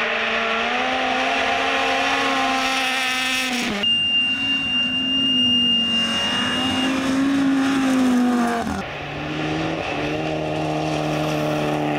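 Rally cars driven flat out on a gravel stage, engines held at high revs, in three clips cut back to back: first a Honda Civic Type R hatchback, then an Audi 80 saloon whose note wavers and climbs, with a steady high whistle over it for about three seconds, then a lower, steadier engine note. Gravel and tyre noise lie under the engines.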